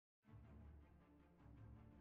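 Near silence: very faint background music, beginning just after a moment of dead silence.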